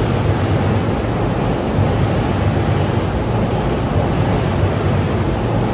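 E233 series 7000-numbered electric commuter train running past close by as it pulls out of the platform: a loud, steady rumble of wheels and running gear.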